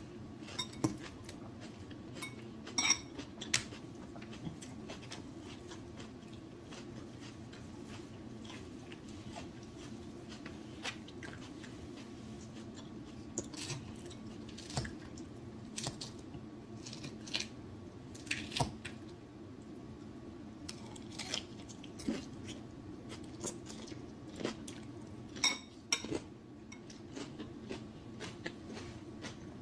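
Close-miked eating of a shrimp boil: scattered sharp clicks and clinks of utensils and dishes, with chewing and mouth sounds, over a steady low hum.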